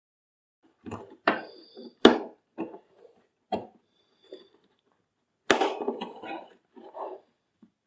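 Plastic vacuum cleaner parts being handled and fitted together: a run of clicks and knocks with short scraping and faint squeaks, the sharpest knocks about two and five and a half seconds in.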